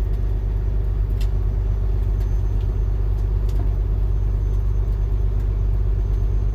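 Steady low machine hum and rumble, with a few faint clicks.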